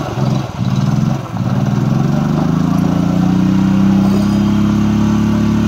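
Royal Enfield Bullet 350's single-cylinder engine revving hard during a rear-tyre burnout. The engine dips briefly twice in the first second and a half, then its pitch climbs and holds high.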